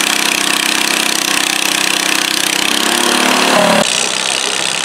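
Garden tractor engine running under load as it drags a weight-transfer sled, its pitch climbing about three seconds in. The engine sound cuts off abruptly less than a second later, giving way to a duller steady noise.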